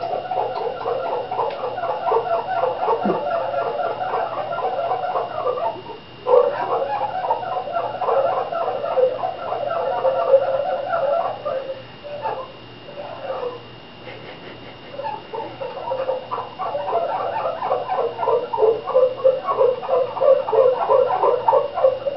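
Dishes being scrubbed by hand: rapid back-and-forth rubbing strokes with a squeaky, pitched tone, in long runs that break off briefly about six seconds in and thin out for a few seconds around the middle.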